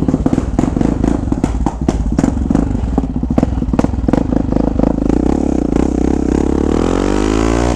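Yamaha XT 660's single-cylinder engine through an aftermarket stainless-steel Atalla exhaust, thumping unevenly with sharp pops at low revs as the bike rolls out. From about five seconds in it accelerates, the exhaust note rising steadily in pitch.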